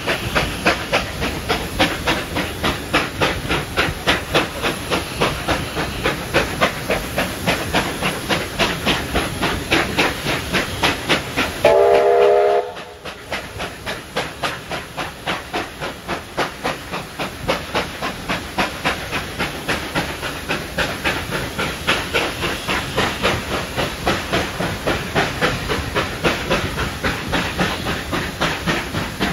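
Steam locomotive 3801, a NSW C38 class Pacific, working hard up a steep grade, its exhaust beating evenly at about three beats a second, with the train's wheels running on the rails. About twelve seconds in, the locomotive's steam whistle sounds once, for about a second.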